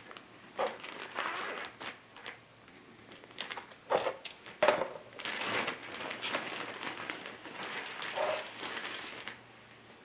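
Plastic zipper storage bag crinkling and rustling as it is handled and fabric is taken out of it, with a couple of sharp snaps about four to five seconds in. The rustling stops about a second before the end.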